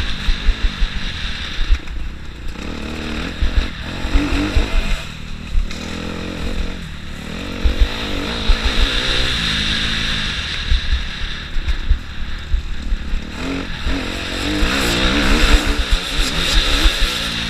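Motocross bike engine revving hard and easing off again and again as the throttle is opened and shut along the dirt track. Wind buffets the on-board microphone throughout.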